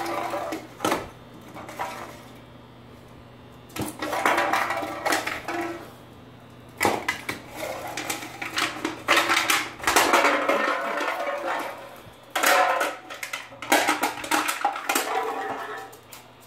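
Empty aluminium beer can rolling and clattering across a wooden floor as a puppy pushes and bats at it, in several bursts with short pauses between.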